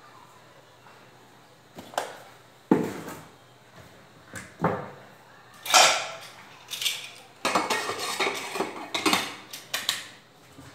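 Pots, pans and metal utensils clattering as they are handled and set down: a few separate knocks starting about two seconds in, then busier, overlapping clanking with short ringing in the second half.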